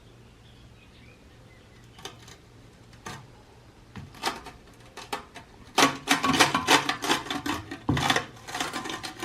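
Hard ceramic and cast iron pieces clinking, knocking and scraping as kiln tiles and an enamelled cast iron pot are handled after firing. There are a few single knocks at first, then dense clattering over the last few seconds.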